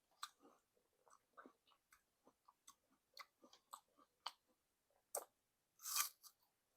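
Mouth eating sounds of apple with peanut butter being chewed: irregular crisp crunches and wet clicks, with one longer, louder crunch about six seconds in.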